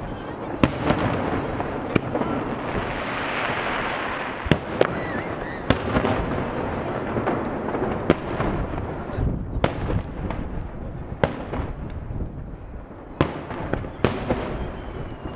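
Aerial firework shells bursting over the sea: about a dozen sharp bangs at irregular intervals over a continuous noisy background.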